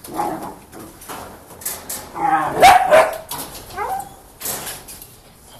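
Belgian Malinois puppies barking and whining, in several short calls, the loudest a little after halfway, with knocks and rattles among them.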